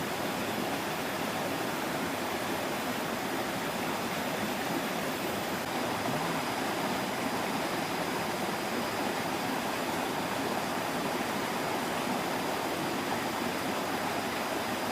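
Steady rushing of flowing stream water, an even hiss without breaks or single events.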